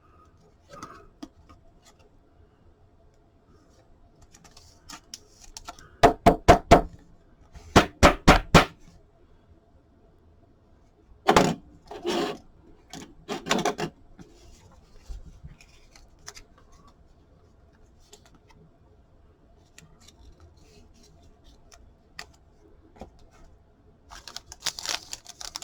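Trading cards and packs being handled on a table: light scattered clicks, taps and rustles over a faint steady hum, with a few short voice-like sounds about six to fourteen seconds in.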